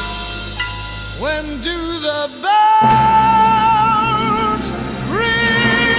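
A male vocalist singing a slow ballad with instrumental accompaniment, sliding up into long held notes with vibrato: one held note starts about halfway through, and another rises in near the end.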